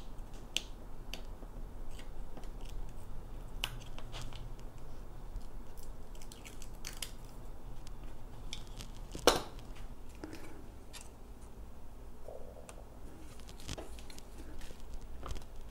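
Scattered small clicks and ticks of hands working double-sided tape onto a small bent galvanized sheet-metal shim, with one sharper click about nine seconds in.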